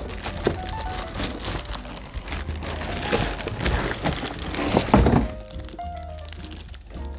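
Cardboard carton and plastic bag rustling and crinkling as an air fryer is lifted out of its packaging, with a heavy thud about five seconds in as it is set down on a wooden table. Background music plays under it.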